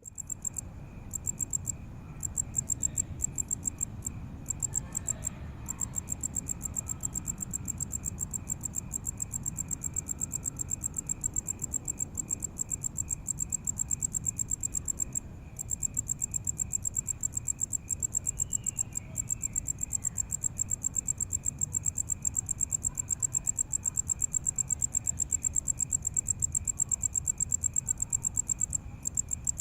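Crickets chirping: a high-pitched, rapidly pulsed chirping that keeps on with only a few brief pauses, over a fainter, lower chirping and a low background rumble.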